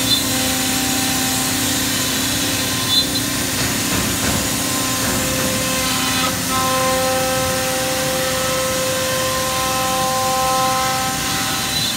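Holz-Her Cosmec Conquest 510 CNC router running, a steady mechanical noise with several steady tones. The tones drop out briefly about six seconds in, then return.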